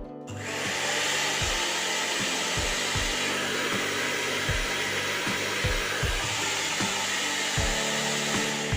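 Electric blender's motor switched on and running steadily at full speed, a loud even whirr, the repaired motor working again.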